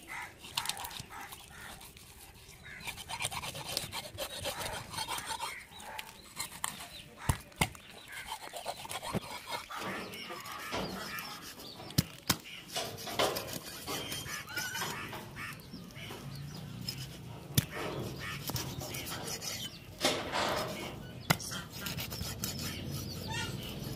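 A long curved knife being pressed and worked through a large fish on a wooden log chopping block: scraping and rubbing of the blade through flesh and bone, with a few sharp knocks where the blade strikes the wood.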